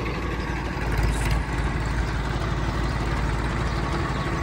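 Diesel tractor engine idling with a steady low rumble, briefly a little louder about a second in.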